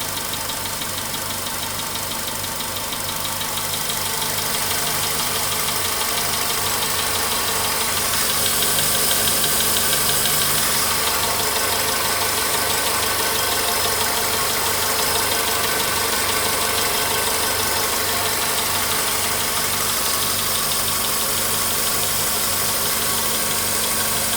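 Volkswagen Polo Sedan petrol engine idling about five minutes after a cold start, with a light knock that is fading as the engine warms but is still there.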